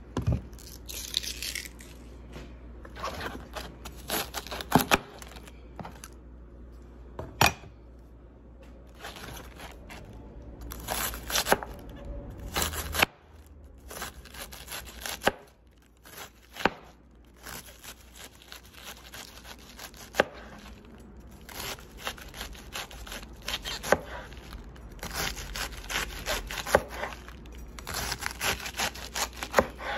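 A broad cleaver-style knife shredding a wedge of cabbage on a cutting board. Irregular runs of quick, crisp cuts crunch through the leaves and knock on the board, with a short quieter pause about halfway through.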